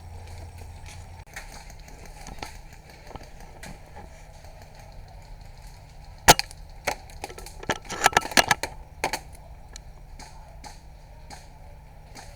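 Airsoft gun firing: one sharp shot about halfway through, then a quick, uneven string of shots over the next two or three seconds.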